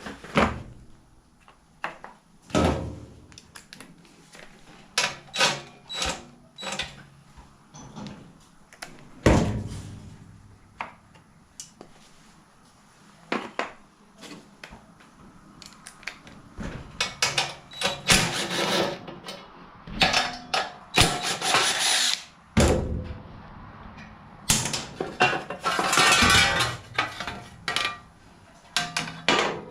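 Tools at work taking the chain guard off a mini bike: scattered metal clicks, clanks and knocks, with a few longer rasping bursts of tool noise past the middle.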